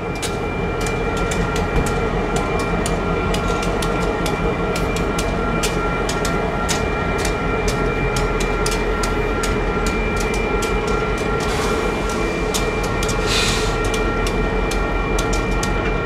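Union Pacific freight train's diesel locomotives rolling past close by: a steady engine rumble, with a few steady tones and many sharp clicks of wheels on rail. It grows louder in the first second, and a brief hiss comes a little after the middle.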